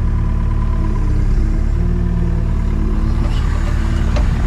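Takeuchi TB285 compact excavator's diesel engine running steadily, with a few faint knocks near the end.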